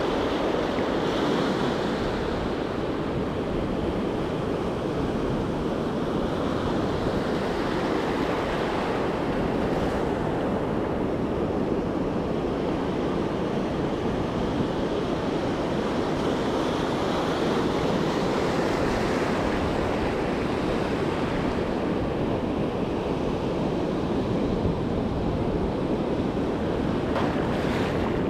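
Ocean surf breaking and washing around the shallows in a steady rush, with wind buffeting the microphone.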